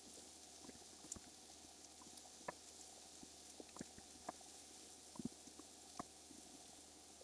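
Faint sizzling with scattered small irregular pops from sliced mushrooms frying in oil in a cast-iron skillet, as they cook down and start to brown.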